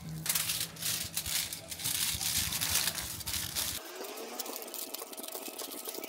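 Aluminium foil crinkling and rustling as hands wrap and press it around a small part, loud for the first few seconds and then quieter.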